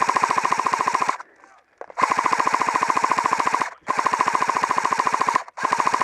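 Airsoft gun firing on full auto in long bursts of rapid, evenly spaced shots: one burst ends about a second in, then three more follow with short pauses between them.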